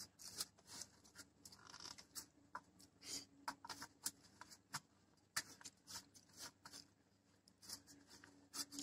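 Faint, irregular scratching of fingers scraping and wiping rice across a stainless steel plate, many short strokes as the last of the food is gathered up.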